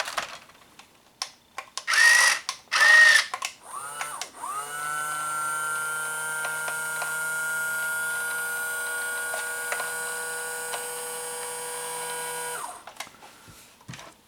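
Small electric drive motor of a 1/12-scale Hobby Engine remote-control track loader, spinning up quickly to a steady whine and running for about eight seconds before stopping abruptly. Before it come two short, loud sounds about a second apart.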